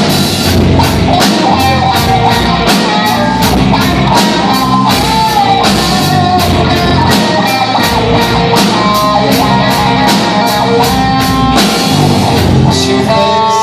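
Rock band playing an instrumental break: electric guitar carrying a melody over a steady drum-kit beat.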